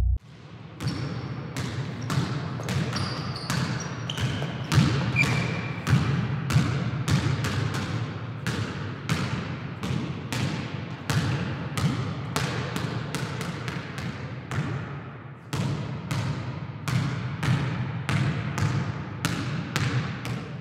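Basketball dribbled on a hardwood gym floor, about two echoing bounces a second, with a brief pause about three quarters of the way through. A few short high squeaks come in the first few seconds.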